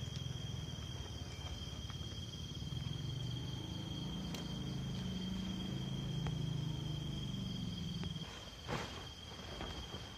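Night crickets trilling steadily at one high pitch, over a low rustling rumble that stops about eight seconds in, followed by a sharp click.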